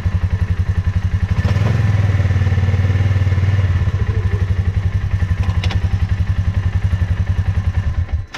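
Polaris Ranger 570's single-cylinder engine idling with a rapid, even beat. It picks up briefly about one and a half seconds in, settles back after about four seconds, and cuts off abruptly near the end.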